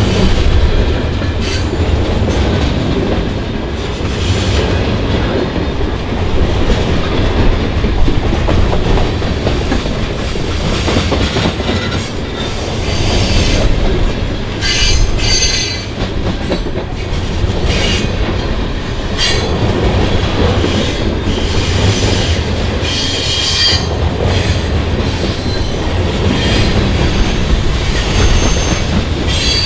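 CN freight train's cars rolling by, a steady heavy rumble with clacking over the rail joints. Short high-pitched wheel squeals break in several times, most in the middle and latter part.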